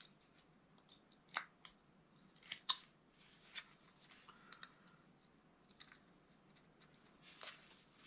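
Carving knife slicing notches into a small wood blank: a series of faint, short cutting strokes, the loudest a pair about two and a half seconds in.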